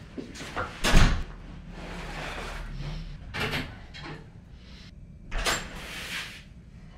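Hotel room door and luggage being handled: knocks, rustling and thuds, with a heavy deep thud about a second in and another about five and a half seconds in.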